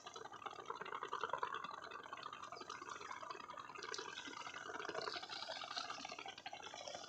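Shallow river water lapping and splashing close to the microphone, a steady, irregular watery sound.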